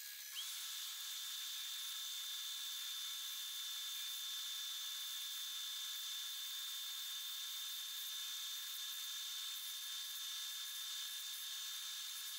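Belt grinder running while a knife's handle scales are pressed against the belt and sanded: a steady hiss with a high, even whine that comes in about half a second in.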